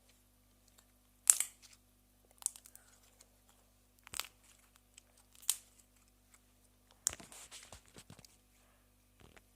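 Slime being squeezed and worked by hand, giving sharp crackling pops: four separate ones a second or so apart, then a denser run of crackles about seven seconds in.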